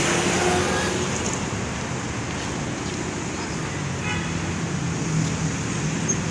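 Roadside traffic noise: passing vehicles' engines and tyres, with a faint brief tone in the first second.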